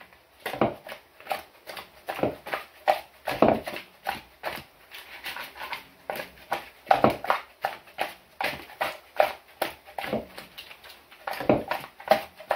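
Whole fish being tossed in a plastic colander to coat them in oil and spices: repeated wet slaps and thumps, about two or three a second.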